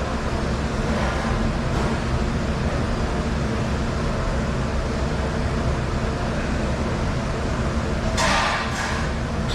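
Dishwasher running with a steady mechanical hum and rumble, and a short hiss about eight seconds in.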